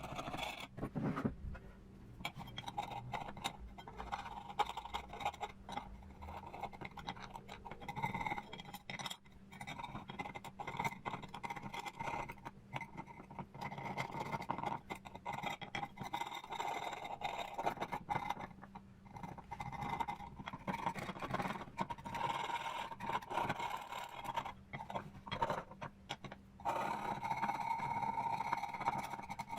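Scraping and scratching on a metal plate in irregular strokes, with a faint steady hum underneath.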